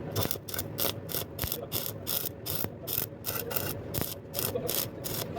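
Repeated quick rasping strokes of a hand tool working metal, about four a second and slightly uneven.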